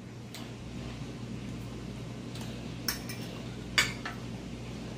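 Metal forks clicking and clinking against glass plates during a meal: a few sharp clicks, the loudest about three and four seconds in.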